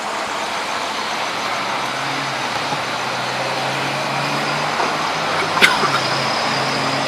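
Steady road traffic noise of cars going by, under a low engine hum, with one sharp click about five and a half seconds in.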